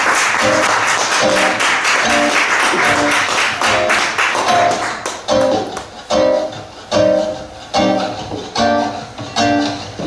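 Audience applause with guitar notes picked over it. About five seconds in, the applause gives way to guitar chords strummed in a steady rhythm, roughly one strum every 0.8 s, as the next song begins.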